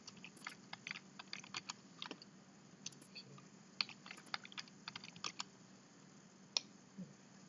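Computer keyboard typing: quick, irregular key clicks that thin out after about five seconds, then one last click.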